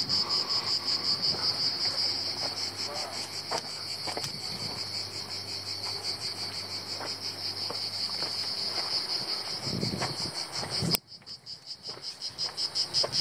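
Cicadas singing in chorus, a steady high buzz pulsing several times a second. It cuts off abruptly near the end and comes back a second or so later. Soft footsteps on the dirt path lie faintly underneath.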